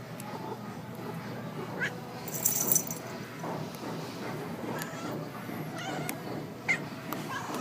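Domestic cat giving a few short, high squeaky mews, with a brief scratchy burst of noise between the first and second call.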